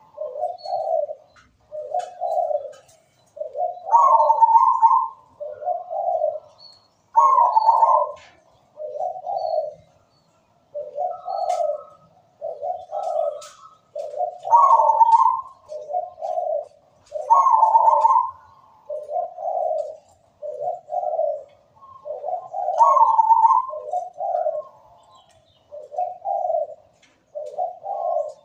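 Caged zebra dove (perkutut) cooing in repeated phrases: each opens with a higher note followed by a run of lower coos, and the phrase comes round several times.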